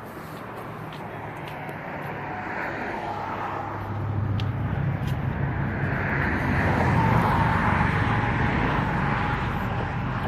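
Motor vehicle engine hum and road noise, growing louder about halfway through and easing slightly near the end.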